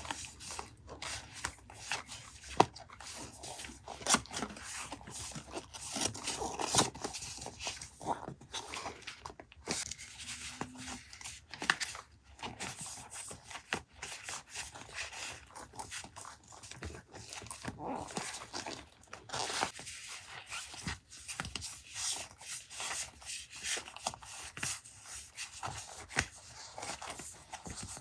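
Paper and stationery being handled close up for a collage journal: irregular rustles, scrapes and small taps, with no steady rhythm.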